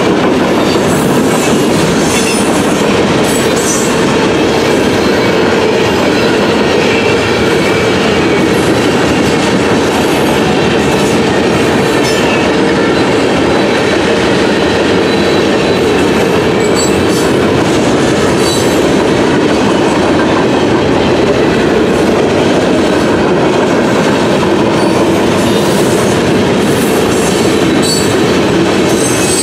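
A CSX freight train's cars rolling past at a grade crossing: a loud, steady rumble and clatter of steel wheels over the rail, with faint high wheel squeals at times.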